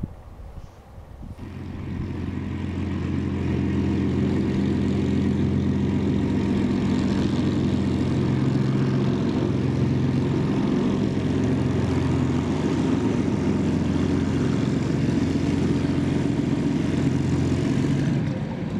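Supermarine Spitfire T9's Rolls-Royce Merlin V12 engine and propeller running at low taxiing power as the aircraft taxis. It comes in about a second in, swells over the next couple of seconds to a steady low drone, and fades near the end.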